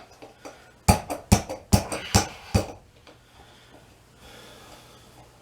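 Steel tire-changing hand tools knocking and clanking against each other, about six sharp metallic knocks in under two seconds.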